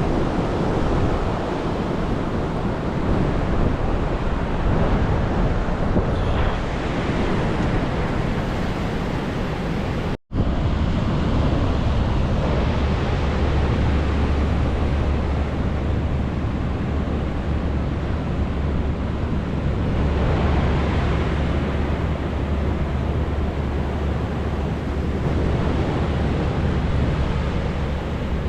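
Pacific Ocean surf breaking and washing in steadily, with wind buffeting the microphone. The sound drops out for an instant about a third of the way in, and the low wind rumble is heavier after that.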